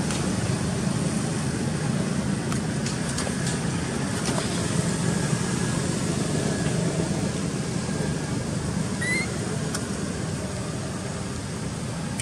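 Steady low background rumble, with a short rising squeak about nine seconds in.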